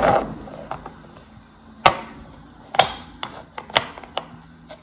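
Wooden toy blocks and wooden train track pieces being handled and set down on a hard floor: a loud wooden knock at the start, then a scattering of light clacks as pieces are placed.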